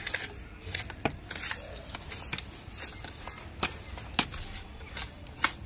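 Fingers scratching and raking through loose compost and soil in a plastic pot, with irregular crackles and scrapes.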